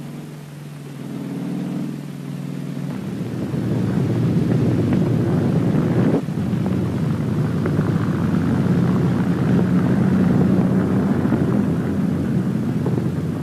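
Tank engines running with a rumble of moving armour: a steady engine drone at first, growing into a louder, rougher rumbling from about three seconds in.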